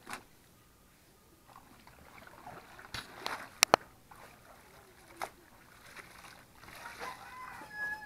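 Clothes being hand-washed in a plastic basin: scattered splashes and knocks, with two sharp clicks about three and a half seconds in. A rooster crows in the background.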